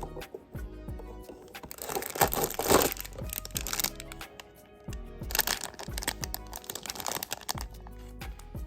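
Background music, with the crinkling and crackling of packaging being handled. The crinkling is loudest about two to three seconds in and again around five and a half seconds in.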